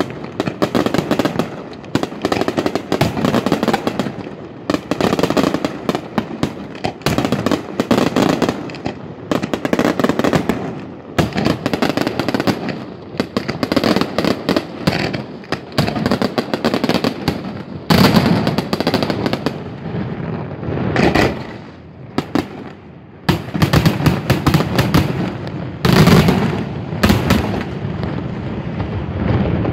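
Daytime aerial fireworks shells going off in a rapid, continuous barrage of bangs and crackling reports, many a second. The barrage eases briefly a little after the middle, then picks up again.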